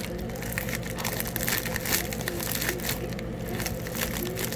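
Packaging crinkling and rustling as a mailed package is opened and handled by hand: irregular, scattered crackles.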